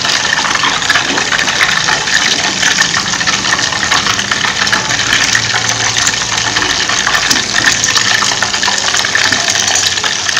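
Butter boiling down into ghee in a stainless steel pot: a steady crackling sizzle as the milk solids fry in the hot fat, with ghee poured back into the pot from a ladle. It is the last stage of cooking, when the solids settle and turn brown.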